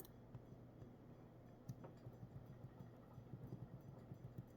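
Near silence: room tone with a faint steady low hum and a few tiny soft ticks.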